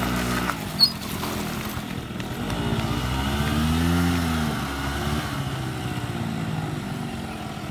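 Bajaj Chetak scooter's two-stroke engine revving, the pitch falling and then rising to a peak about four seconds in before easing off. A short sharp click about a second in.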